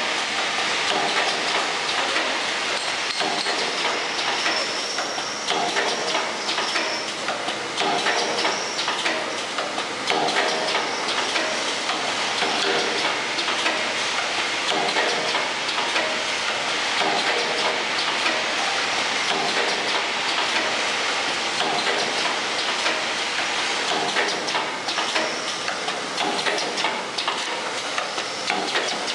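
Clothes-peg assembling machine running: its vibratory bowl feeders give a steady, dense rattle of plastic peg parts, with the pneumatic assembly station clacking and hissing in a repeating cycle.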